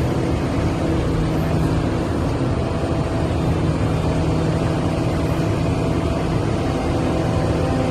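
Liebherr R 974 hydraulic excavator's diesel engine running steadily: a constant drone with several held tones over a low rumble.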